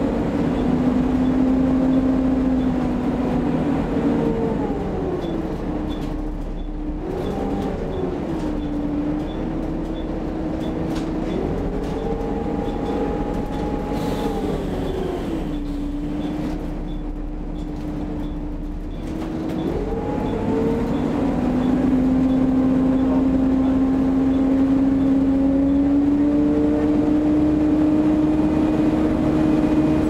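Volvo B7TL double-decker bus running with its ZF automatic gearbox, heard inside from the upper deck: a low rumble under several whining tones that step up and down in pitch a few times as the bus pulls, changes gear and eases off. It gets louder about two-thirds of the way through.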